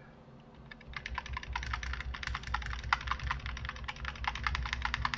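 Computer keyboard keys pressed rapidly and repeatedly, several presses a second, starting about a second in: repeated undo (Ctrl+Z) presses stepping back through edits in a 3D modelling program.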